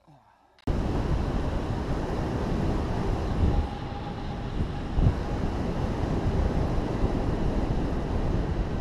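Wind rushing over an action camera's microphone on a mountain bike riding fast along a paved road, a loud, steady rush that starts abruptly less than a second in.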